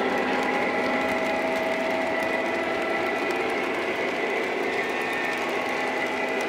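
Lionel O-gauge model train running on three-rail track: a steady electric-motor whine and wheel rumble with faint fine clicking.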